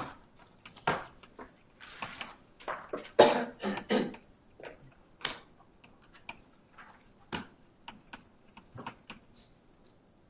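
Chalk on a blackboard: short irregular taps and scratching strokes as writing goes on, with a louder cluster of sounds a little over three seconds in.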